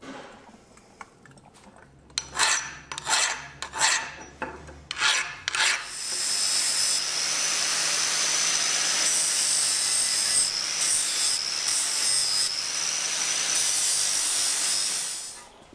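Hand-held angle grinder grinding a forged steel hot cut chisel clamped in a vise. First come several short scrapes of the disc against the metal, then a long steady grind with a high whine through it, which stops near the end.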